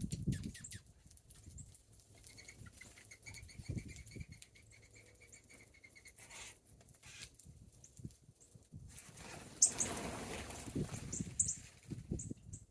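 Small birds feeding: wing flutters and short, very high chirps, with scattered low thumps. A steady high tone holds for about four seconds in the first half.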